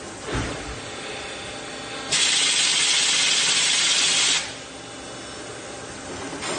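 Puma 6G CNC lathe and auto loader running with a steady machine hum. A low thump comes just after the start, then a loud hiss switches on about two seconds in, lasts about two seconds and cuts off sharply.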